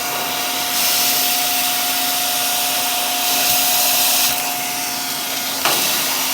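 Vacuum cleaner with a crevice tool running, a steady rush of air with a constant whine. The hiss grows louder and softer as the nozzle moves, and there is a single knock near the end.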